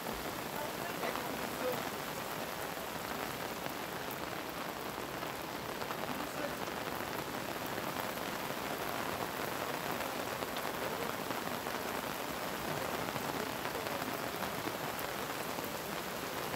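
Steady rushing noise of muddy floodwater running down a road in a flash flood after heavy rain.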